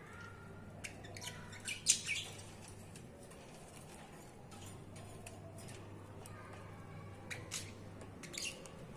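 Pet budgerigars giving short, high chirps in two clusters, about a second in and again near the end, over a faint steady low hum.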